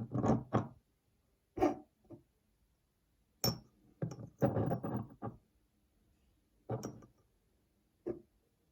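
A series of short knocks and scrapes of hard objects in uneven bursts: one a little over a second and a half in, a cluster between about four and five seconds, and single ones near seven and eight seconds.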